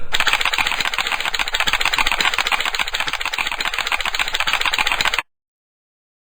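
Cartoon sound effect of a bug munching away inside a tomato: a fast, even clatter of chewing clicks that cuts off suddenly about five seconds in.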